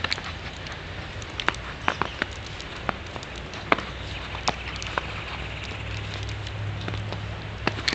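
Crisp, irregular crackles and clicks of fresh snow crunching underfoot, about 4 to 6 inches deep, over a steady low hum.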